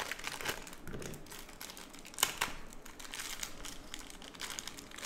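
Thin clear plastic bags crinkling and rustling as small Beyblade parts are unwrapped by hand, with a sharp click about two seconds in.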